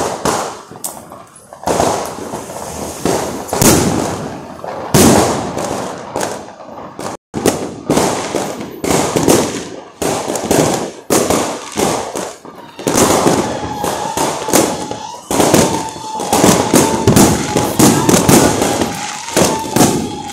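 Fireworks going off along the street: loud, sharp bangs one after another, coming faster and denser in the second half. About two-thirds of the way in, a steady high tone starts sounding beneath the bangs.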